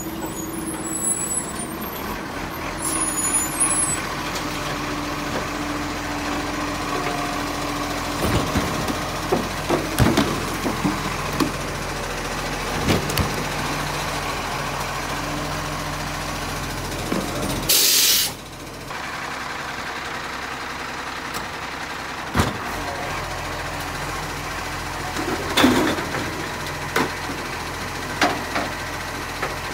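Iveco side-loader garbage truck running at idle while its automated arm grips a wheelie bin, lifts it and tips it into the hopper, with scattered clanks and knocks from the arm and bin. A short, loud hiss of released air comes about halfway through.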